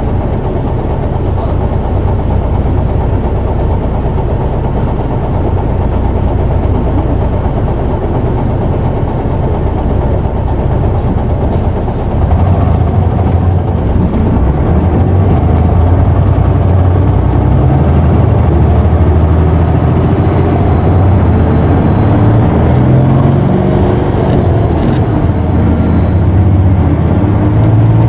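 Isuzu Erga city bus (PKG-KV234L2) diesel engine heard from inside the cabin: running steadily at first, then about twelve seconds in it gets louder and its pitch climbs as the bus accelerates hard.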